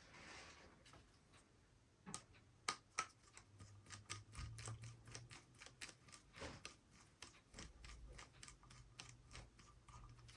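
Faint, rapid small clicks, about four a second from about two seconds in, as a small wheel lug nut is run on and tightened on a 1/18-scale RC rock crawler's hub.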